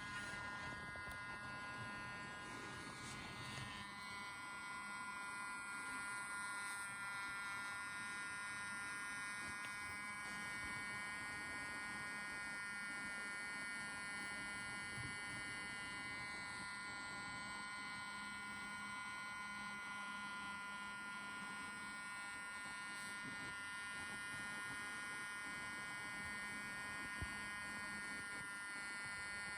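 Autel EVO II drone remote controller giving off an abnormal steady electrical buzz, a high whine made of several tones together that does not change: a fault noise from the controller.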